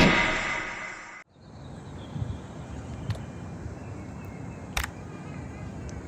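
Rock intro music fading out and cutting off about a second in, followed by quiet open-air platform ambience with faint background hiss and a couple of sharp clicks.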